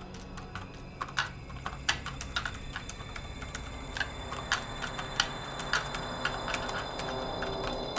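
Typing on a laptop keyboard: irregular key clicks, in short runs with pauses between, over a faint low steady hum.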